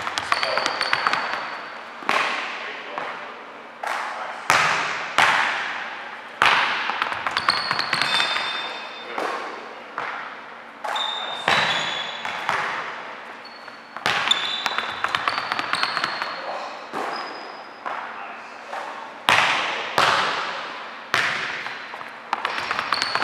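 Basketball thudding on a hardwood gym floor and being caught, every second or two, each hit echoing through the large hall, with short high sneaker squeaks on the court between them.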